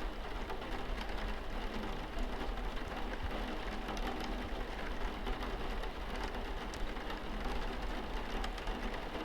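Steady rain, with many small drops pattering against a window, over a low steady rumble.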